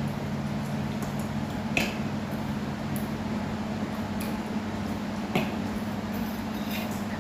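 Chopsticks and spoons clinking now and then against ceramic plates and bowls during a meal, two clinks sharper than the rest, over a steady low hum.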